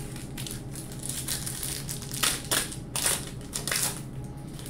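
A 1998 Score football card pack's wrapper crinkling and tearing as it is picked up and ripped open by hand, with a run of sharp crackles about two to four seconds in.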